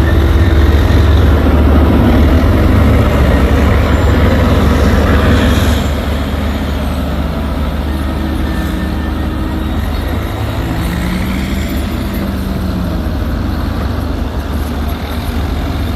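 Diesel engine of a Massey Ferguson digger running steadily under load while digging. About six seconds in, the sound drops somewhat quieter and carries on steadily.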